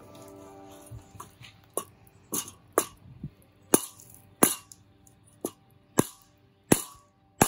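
Rubber mallet striking a wooden block set on top of metal garden edging, driving the edging into sandy soil: a series of about nine sharp knocks, starting about two seconds in and coming unevenly at roughly one every half second to a second.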